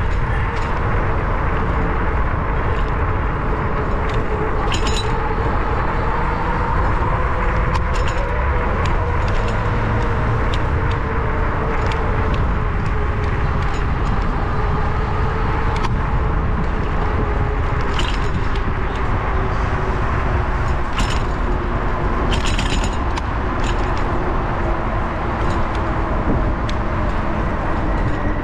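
Bicycle riding along a city street, heard from a handlebar-mounted camera: steady wind rush and road rumble, with a faint hum that drifts slowly in pitch. A few sharp rattles stand out along the way.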